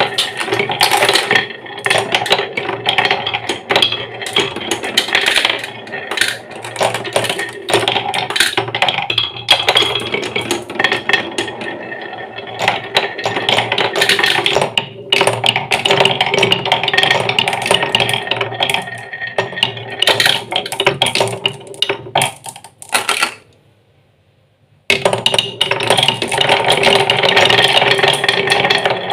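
Marbles rolling and clattering down wooden marble-run tracks: a dense run of clicks and rattles that drops out briefly about three-quarters through, then resumes.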